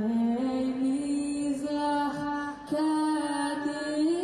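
A performer singing slow, long-held notes that climb step by step, with a brief pause for breath partway through.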